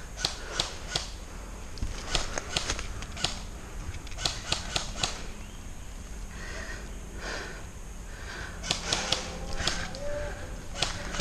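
Airsoft rifles firing: sharp clicks in quick groups of three or four shots, heard several times.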